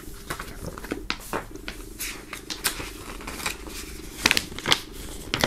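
Folded paper poster being unfolded and handled: irregular crinkling and crackling of paper over a faint steady low hum.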